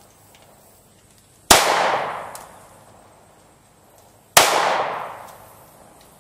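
Two pistol shots from a Glock 19 Gen 4 firing 9mm, about three seconds apart, each followed by a ringing echo that fades over about a second.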